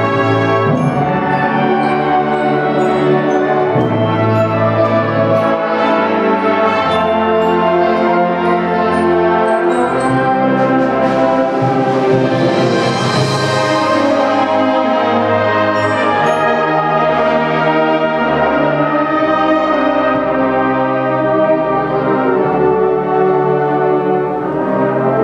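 Concert band playing a slow passage of held brass and woodwind chords.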